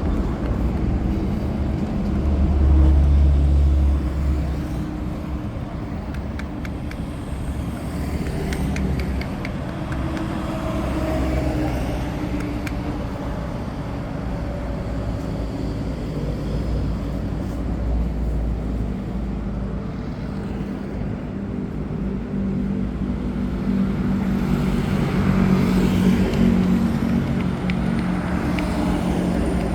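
Street traffic: motor vehicles running and passing, a steady low rumble with engine tones that swells as vehicles go by, loudest a couple of seconds in and again near the end.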